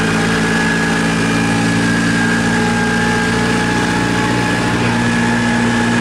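Engine of an open-sided passenger tram running steadily at low speed, heard from on board, with an even, unchanging pitch.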